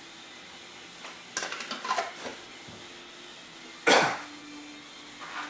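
Light clicks and clinks of a 33mm Mikuni carburettor and its small metal parts being handled on a workbench, a quick run of them between one and two seconds in. About four seconds in comes one short, sharp, noisy burst, the loudest sound here.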